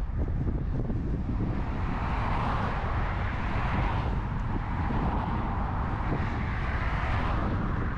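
Wind buffeting the microphone of a camera on a moving bicycle, a steady low rumble. A broad rushing noise swells about two seconds in and fades near the end.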